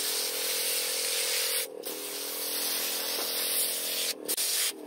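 Liquid nutrient hissing out of a sprayer wand's nozzle onto the soil at the base of soybean seedlings, over a steady hum from the sprayer. The spray breaks off briefly about 1.7 s in, again about 4 s in, and near the end, as the nozzle is moved from plant to plant.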